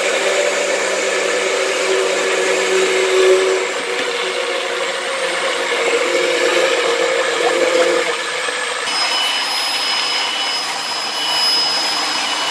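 Electric blender running steadily, mixing a batter of oil, milk, egg yolks and flour. About nine seconds in, the sound changes to an electric hand mixer beating egg whites, with a steady high whine.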